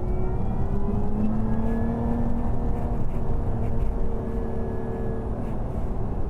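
Lotus Emira's supercharged 3.5-litre V6, heard from inside the cabin, pulling under throttle: the revs climb over the first couple of seconds, hold, then ease back near the end.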